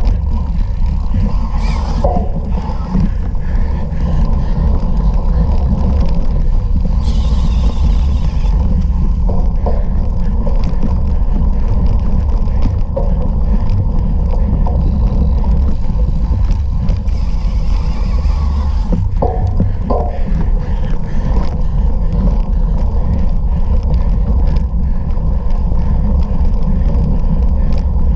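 Steady wind rumble and riding noise on a bike-mounted camera's microphone while racing a bicycle off-road, with a few brief clicks and a short hiss about seven seconds in.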